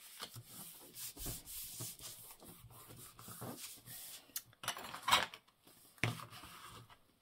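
Hands rubbing and smoothing paper freshly glued onto a card file folder, a dry rubbing, with a couple of sharper paper sounds about five and six seconds in.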